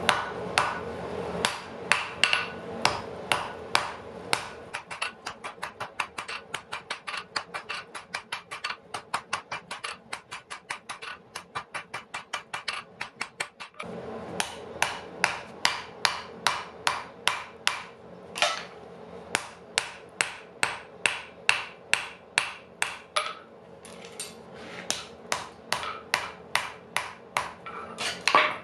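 Blacksmith's hammer striking a red-hot knife blade of forge-welded wrought iron and medium-carbon steel on an anvil, in an even run of blows about three to five a second, drawing out and shaping the point. There is a short break about halfway through and a brief pause about two-thirds through.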